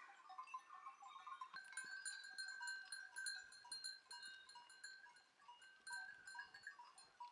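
Faint, irregular tinkling of small livestock bells on a moving flock of sheep.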